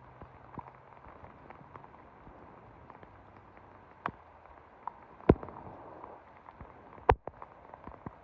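Steady rain falling, a soft even hiss, broken by a few sharp taps, the loudest about five and seven seconds in.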